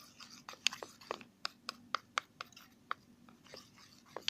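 A series of irregular sharp clicks and crackles close to the microphone, about a dozen over four seconds.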